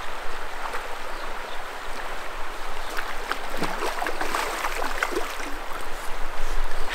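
Clear stream water running and rippling, with splashing from a hooked rainbow trout thrashing at the surface as it is brought to the net.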